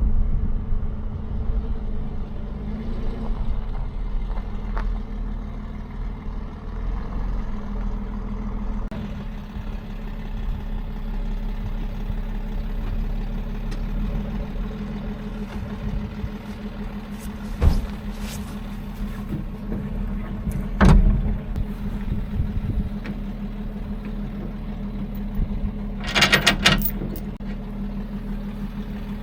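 A vehicle engine idling steadily, with a few sharp knocks and a short metallic clatter near the end.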